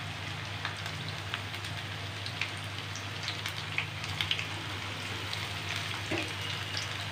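Battered chicken drumsticks deep-frying in hot oil in a pan over a flame kept a little below medium: a steady sizzle with many small scattered crackles and pops. Another piece is slid into the oil about four seconds in.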